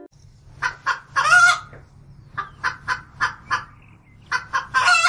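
A chicken clucking: a run of short clucks, broken by two longer drawn-out squawks, one about a second in and one near the end.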